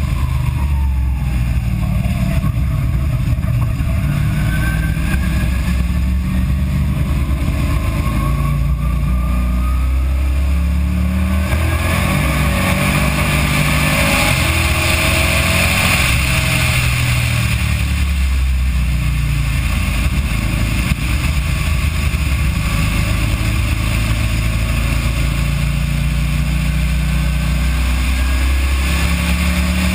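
A car engine under hard acceleration, heard from inside the cabin. Its pitch rises as the revs climb in third gear over the first ten seconds or so. It then runs on at high revs under a louder hiss of wind and road noise, drops as the car slows, and pulls again in fourth gear.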